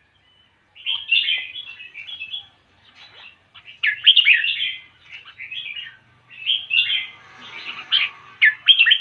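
A songbird singing in quick chirping phrases, several bursts of song separated by short pauses.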